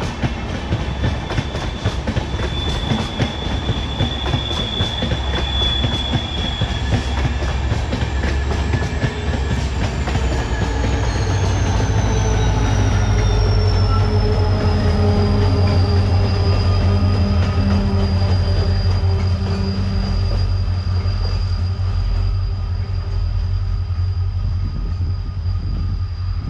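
A passenger train passing close by on a curve: wheels clacking over the rail joints with a steady high flange squeal. About halfway through, the diesel locomotives at the rear go past with a deep engine rumble and a high whine that slides down in pitch, and the rumble eases off near the end.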